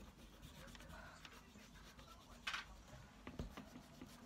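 Faint scratching and rubbing of a pencil on drawing paper, with a couple of louder scuffs a little past halfway.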